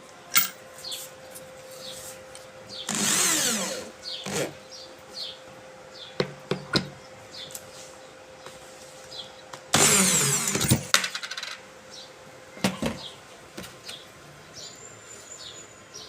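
Electric drill run in two short bursts, about three seconds in and again about ten seconds in, its pitch sliding as the motor spins up and down. Sharp clicks and knocks of handling come between the bursts.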